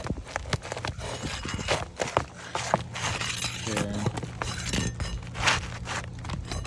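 Asphalt roof shingles crackling and nails being worked loose, a run of sharp clicks, snaps and knocks as the brittle shingle is lifted and pried.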